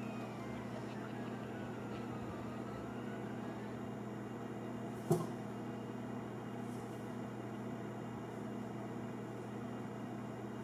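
Steady low hum of room noise with a single sharp click about halfway through.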